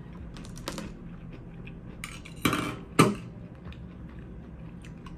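Clinks and knocks of a drinks can and a metal straw being handled: a few light taps, then two louder clinks close together about two and a half and three seconds in.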